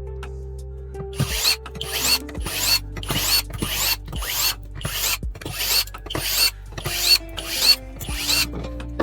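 Close rasping strokes from hands working on computer parts, about two a second, each with a small rising squeak, over soft background music.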